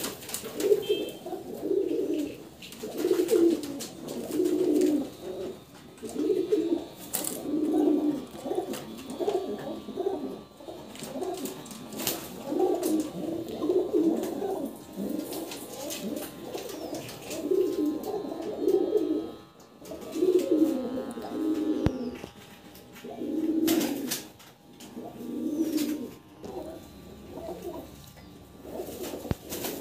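Domestic pigeons cooing over and over, low coos following one another every second or two, with a few sharp clicks among them.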